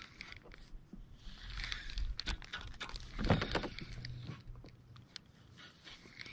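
Handling noise from a kayak angler working a spinning rod and reel: scattered clicks, rustles and light knocks, with one heavier thump about halfway through.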